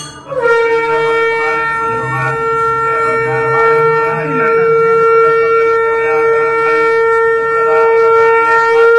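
Conch shell (shankha) blown in one long, steady blast during a Hindu puja, a single held note with a brief upward slide at the start.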